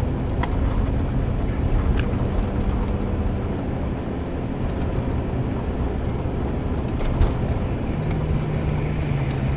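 Steady engine hum and road noise inside a moving car, with a few light clicks.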